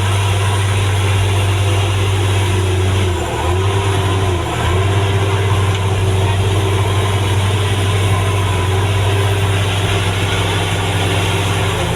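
Car engine running steadily with road noise, with a deep, even drone that dips briefly twice, about three and four and a half seconds in.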